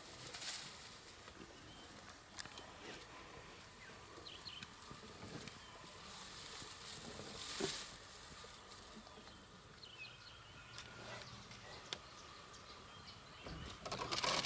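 Faint outdoor bush ambience: a soft steady hiss with occasional short, high chirps and a few scattered soft clicks and rustles, one brief louder rustle about halfway through.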